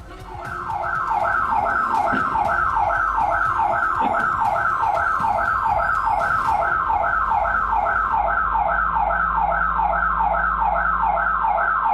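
Home security alarm siren sounding: a loud electronic tone that falls in pitch, repeating rapidly about three times a second. It was set off against would-be intruders at the front door.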